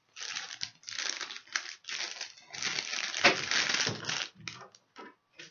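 Clear plastic packaging bag crinkling and rustling in several bursts as it is handled and opened. It is loudest about three seconds in and thins to a few short rustles near the end.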